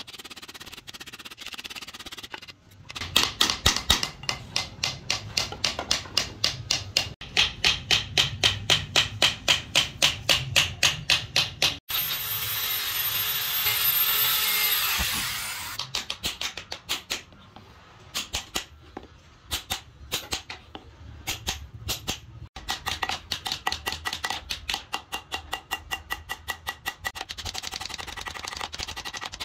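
Small hand hammer tapping thin metal wire into scored grooves in a wooden disc, in fast even strikes of about three a second. About twelve seconds in, an electric drill bores into the wood for about three seconds, its whine falling as it winds down, and then lighter, irregular hammer taps follow.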